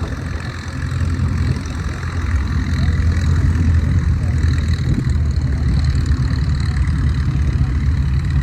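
Rolls-Royce Merlin V12 of a Hawker Hurricane running at low power while taxiing. It grows louder over the first few seconds, then holds steady.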